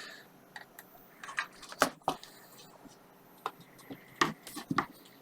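Scattered clicks and taps, about eight in all, from handling an opened computer power supply unit and its circuit board.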